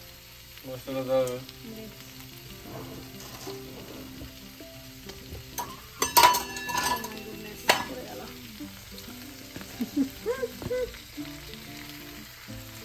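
Cauliflower frying in a nonstick pan with a steady sizzle as a spatula stirs it. A little after the middle comes a loud, sharp clatter of hard knocks with a brief ring.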